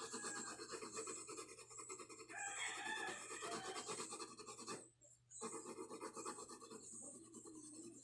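Colour pencil rasping on paper in quick back-and-forth shading strokes, with a short pause about five seconds in.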